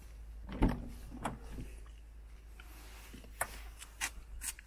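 Soft knocks and clicks from handling around an open car door: a dull thump under a second in, then a few lighter taps and sharp clicks, over a low steady hum.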